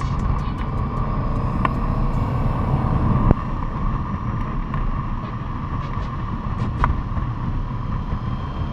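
Motorcycle riding at a steady speed: engine and wind noise with a steady hum, broken by one sharp knock a little over three seconds in and a few faint ticks.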